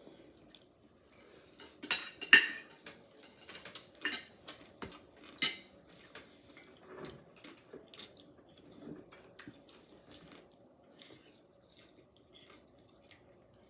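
Chopsticks, clam shells and dishes clinking at a table during a seafood meal: scattered sharp clicks and clatters, most and loudest in the first half, fewer and fainter later.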